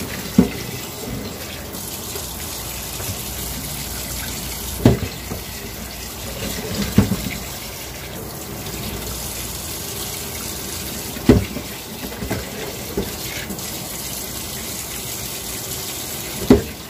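Water running and splashing into a sink as the first boiling water is poured off parboiled chicken, with a few short knocks.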